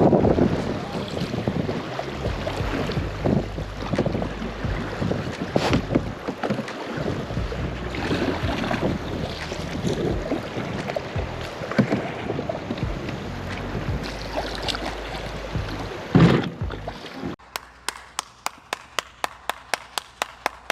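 Wind buffeting the microphone in a small jon boat, with a few knocks, the loudest about 16 seconds in. About 17 seconds in it cuts abruptly to music with a quick, even ticking beat.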